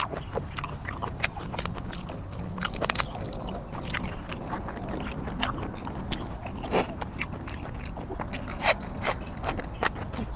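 Close-up eating sounds: wet chewing and smacking with crisp bites, as raw shrimp in spicy dressing and fresh greens such as green onion are eaten. Irregular sharp smacks, a few louder ones in the second half.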